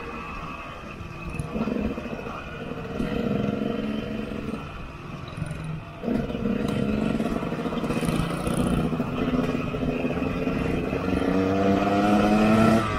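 KTM 125 EXC two-stroke single-cylinder enduro engine, heard from on the bike, with the throttle opened and eased off repeatedly. It picks up suddenly about halfway through, and the revs climb steadily near the end.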